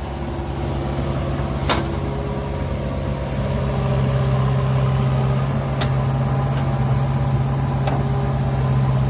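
Heavy diesel engine running steadily with a deep, even hum. A few sharp clicks or knocks come through, about two, six and eight seconds in.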